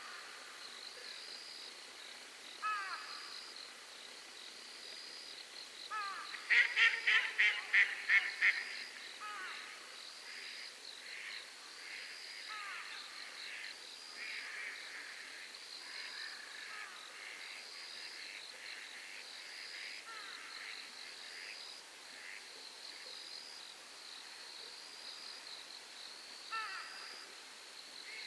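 Night lakeside ambience: a high insect chirp repeats about once a second, over which birds give screeching, sweeping calls. About six seconds in comes a loud run of seven or so rapid calls, followed by softer repeated notes, with another sweeping call near the end.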